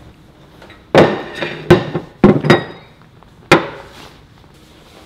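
Ceramic mugs and a plate set down hard on a tabletop: five sharp clunks with a short ring, two of them in quick succession in the middle.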